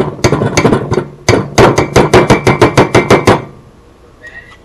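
A metal spoon tapping and scraping rapidly against a steel measuring spoon over a stainless steel pot to knock a tablespoon of butter loose, making a fast run of ringing metallic clinks. The clinks are uneven at first, then steady at about six a second, and stop about three and a half seconds in.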